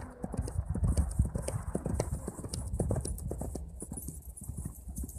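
Horse's hooves clip-clopping on hard ground, a quick, uneven run of knocks.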